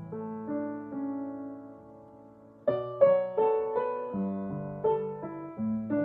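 Upright piano playing a slow melody over held bass notes. The notes die away almost to a pause about two and a half seconds in, then playing resumes with louder, firmer chords.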